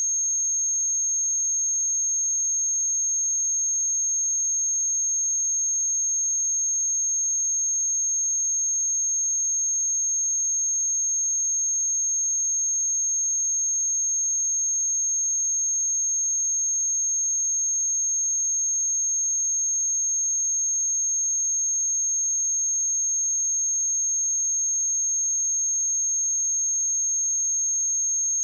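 Steady high-pitched 6457 Hz sine-wave test tone, one pure pitch held at a constant level.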